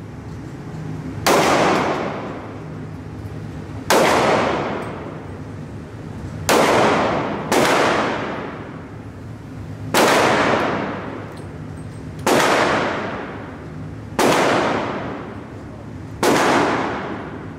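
Handgun fired eight times at an unhurried pace, one shot every one to two and a half seconds. Each report rings on and fades over a second or more in the echoing indoor range.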